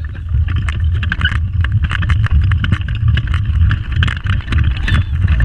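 Pedal go-kart rolling along the track: a steady low rumble from the wheels and frame, with frequent rattling clicks from the chassis, picked up by a camera mounted on the kart.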